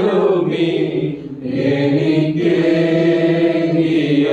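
Congregation singing a slow Malayalam hymn of thanksgiving, one sung word followed by a long held note.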